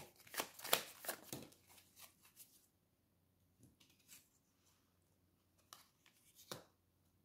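Tarot cards being shuffled by hand: a quick run of crisp card slaps that stops about a second and a half in, followed by a few scattered single clicks as the cards are handled.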